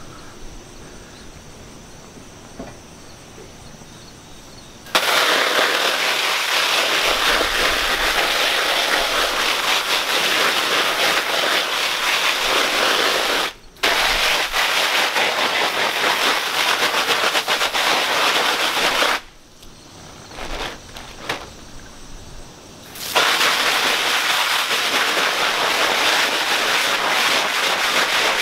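Garden hose spray nozzle jetting water onto a Cuben fiber pack liner and the concrete around it, a loud spattering hiss. It starts about five seconds in, cuts out for a moment, stops for about four seconds past the middle, and starts again.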